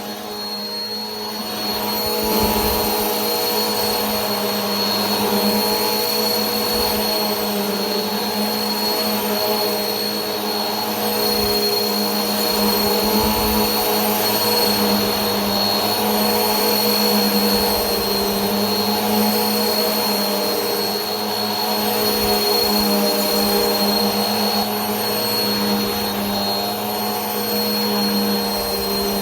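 Vacuum cleaner running continuously, a steady motor hum with a thin high whine over an even rush of air. It comes up slightly about two seconds in, then holds level.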